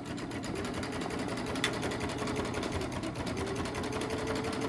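Baby Lock Triumph serger running steadily with a rapid, even stitching rhythm, sewing a plain knit binding strip through its bias binder attachment, with a single click about a second and a half in.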